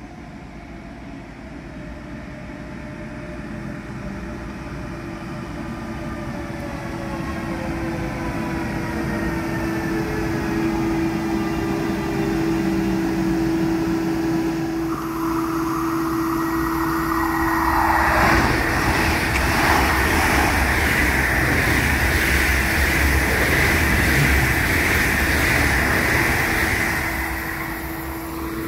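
A metronom train hauled by a DB Class 146 electric locomotive comes in to stop at the platform. Its traction whine falls slowly in pitch as it slows. Then, from about halfway through, loud high brake squeal sounds over the rumble of the wheels, with a steady electrical hum underneath, until just before the end.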